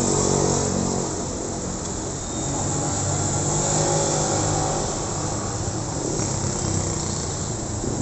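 Street traffic: small motorcycles and scooters ride past one after another, their engines rising and falling in pitch as each goes by.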